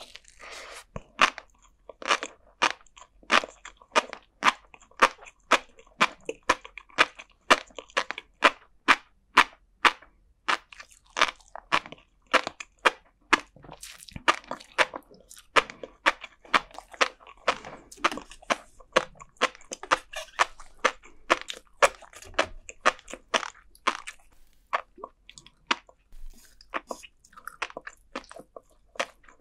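Close-miked chewing of flying fish roe and sea grapes, the tiny eggs and beads bursting between the teeth in sharp pops about two a second, with a few short lulls.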